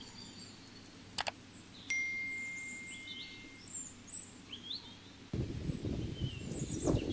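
Small birds chirping over faint background noise, with a couple of clicks and then one clear ringing tone held for under two seconds. About five seconds in, wind begins buffeting the microphone with a low rumble that is louder than everything before it.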